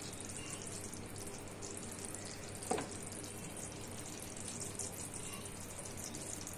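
Sugar syrup boiled to the soft-ball stage, bubbling in a kadhai on a gas burner as a steady faint hiss, with a low steady hum underneath. A single light knock comes about two and a half seconds in.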